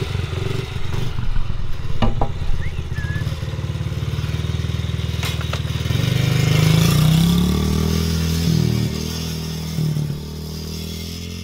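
Small Honda dirt bike engine running at idle with a couple of sharp knocks, then revving up as the bike pulls away about six seconds in, growing fainter as it rides off near the end.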